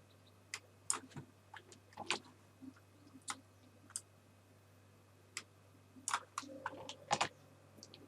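Irregular clicks of a computer mouse and keyboard keys, single clicks with a quicker run about six to seven seconds in, over a low steady hum.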